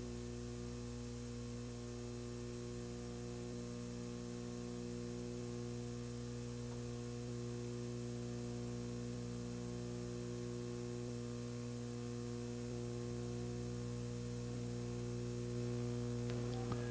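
Steady low electrical hum with several overtones over a faint hiss: mains hum on the audio track, and no other sound.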